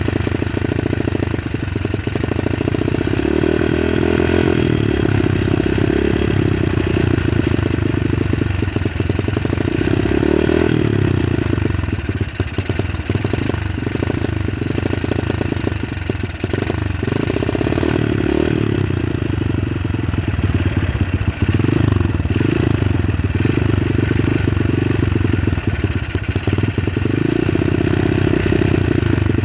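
Honda CRF230's air-cooled single-cylinder four-stroke engine running while Seafoam is fed into its intake, its sound swelling and easing every few seconds.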